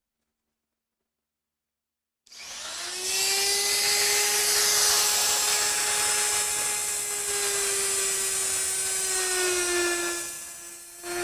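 A high-speed electric motor, a handheld power tool or shop vacuum, switches on about two seconds in and runs with a steady whine over a hiss. Near the end it slows and fades, then briefly runs again.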